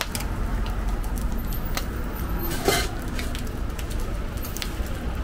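Metal spatula clicking and scraping on a steel flat-top griddle while ham slices fry, with one louder clank about two and a half seconds in, over a steady low rumble.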